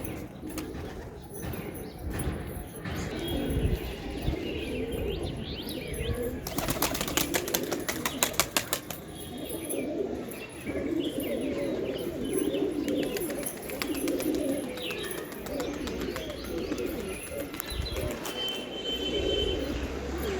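Domestic pigeons cooing continually, with a burst of rapid wing flapping about six to nine seconds in.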